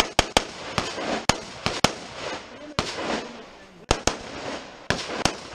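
Rifle shots at a match stage: about a dozen sharp cracks, each with a short ringing tail. The shots come in quick strings and pairs for the first two seconds, then more sparsely after a pause.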